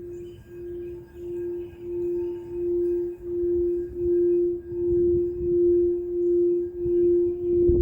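Singing bowl played around the rim, its ringing tone pulsing in even swells about every two-thirds of a second. It grows louder over the first few seconds, then holds steady.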